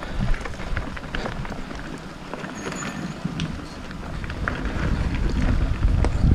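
Mountain bike ridden along a dirt trail: tyre rumble with scattered clicks and rattles from the bike, and wind on the microphone growing louder in the last couple of seconds as speed picks up.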